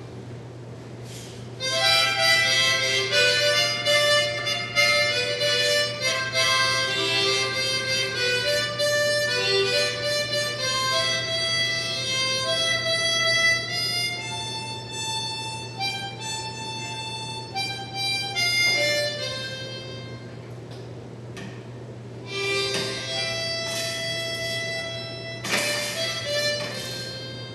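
Harmonica played in a run of held notes and chords. It drops away for a couple of seconds about twenty seconds in, then starts again. A steady low hum runs underneath.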